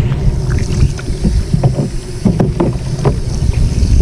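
Tap water running from a faucet into a sink and splashing over a fish fillet being rinsed by hand, with irregular splashes as the fillet is turned under the stream.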